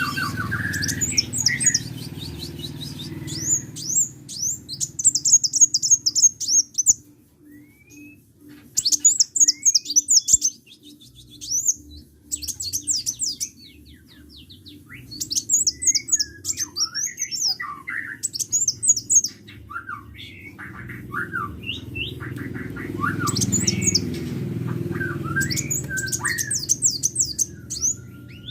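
Sunbird (the bird Indonesian keepers call 'kolibri') singing: bursts of very high, rapid chirping trills, broken by short pauses, with lower whistled notes in between. A low hum runs underneath.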